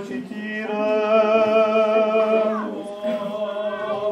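A solo man's voice chanting Orthodox liturgical recitative. He holds one note for about two seconds, slides down in a short falling cadence partway through, then goes on in shorter chanted phrases.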